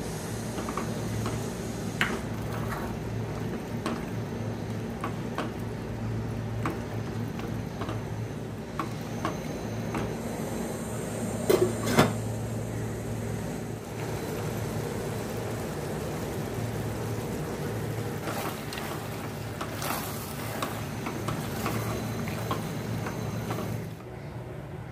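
Macaroni cooking in tomato sauce in a steel pot: scattered small pops and clicks over a steady low hum. A little before halfway, a glass lid is set on the pot with a couple of clinks.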